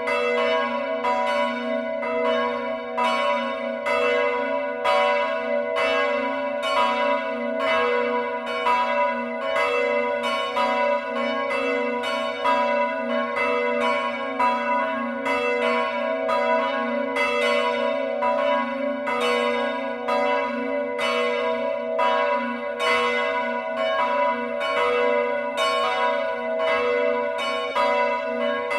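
Several church bells ringing together in a continuous peal, strikes following one another several times a second over a steady, lingering hum.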